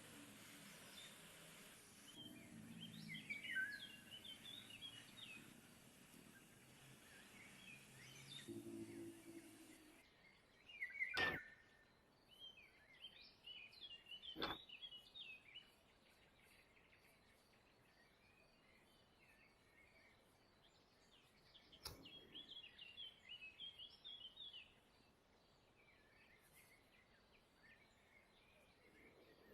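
Faint birdsong: small birds chirping on and off, with three sharp clicks or taps spread through.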